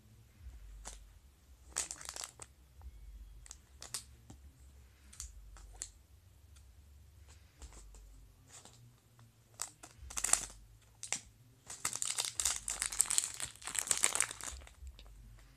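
Thin clear plastic packet crinkling as it is cut with scissors and pulled open: scattered short snips and rustles, then a longer stretch of dense crinkling about three seconds before the end.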